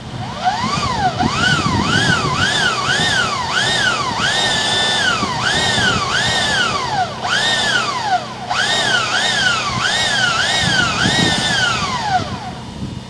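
Electronic siren wailing, its pitch sweeping up and down about twice a second, then falling away near the end.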